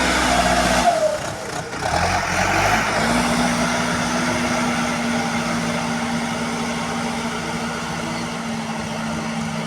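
Backhoe loader's diesel engine running. Its steady note drops away about a second in, and a new, slightly higher steady hum sets in at about three seconds and slowly fades.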